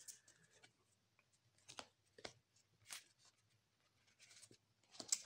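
Near silence broken by a few faint clicks and flicks of Magic: The Gathering trading cards being handled and sorted by hand, with a slightly louder flick near the end.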